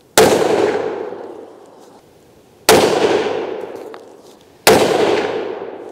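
Rifle fired three times through a jacketed muzzle brake, the shots about two and a half and then two seconds apart, each a sharp crack followed by a long echo fading away over about two seconds.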